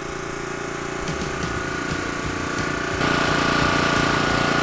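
DJI Matrice 210 quadcopter hovering on a tether, its propellers making a steady whine. The sound jumps louder about three seconds in, where the drone is heard up close.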